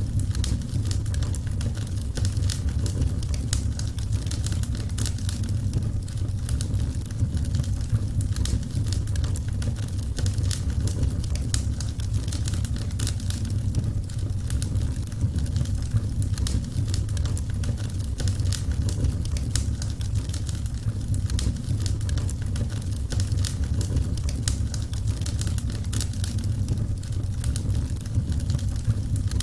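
Burning wood fire crackling: many small sharp pops and snaps scattered irregularly over a steady low rumble of the flames.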